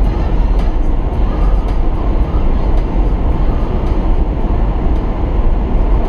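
Steady low rumble of road and wind noise inside a car's cabin while cruising on a highway.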